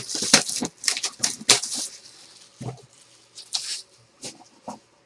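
Trading-card packaging being handled and torn open, with a quick run of crinkling and tearing strokes for about two seconds, then a few lighter rustles and clicks.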